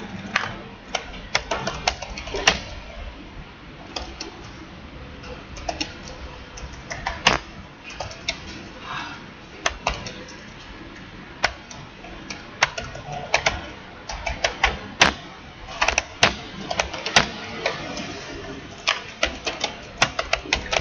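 Typing on a computer keyboard: irregular runs of quick key clicks with short pauses between them, a few single keystrokes sharper than the rest.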